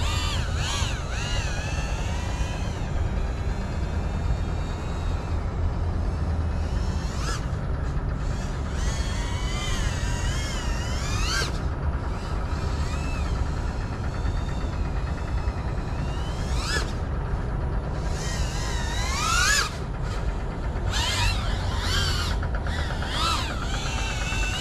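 FPV drone's electric motors whining, the pitch rising and falling as the throttle changes, with a sharp rising sweep about three-quarters of the way through, over a steady low rumble.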